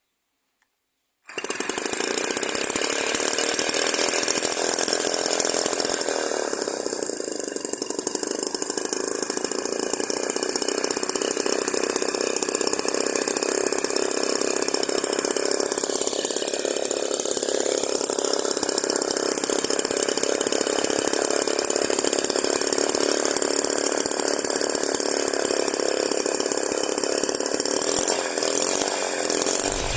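Tiny homemade 6 cc two-stroke engine running at high revs: a steady, high-pitched buzz that cuts in abruptly about a second in, its speed wavering slightly now and then.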